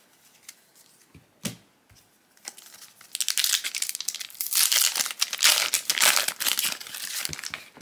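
Foil wrapper of a trading card booster pack crinkling and tearing as it is pinched and pulled open by hand. The dense crackling starts about three seconds in and is loudest near the middle, after a few light clicks of cards being handled.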